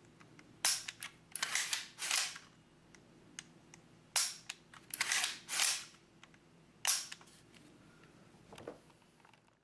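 Bushmaster ACR rifle's newly installed two-stage trigger being dry-fired: sharp metallic clicks, single ones about three seconds apart with short clusters of clicks and rattles between them as the action is worked.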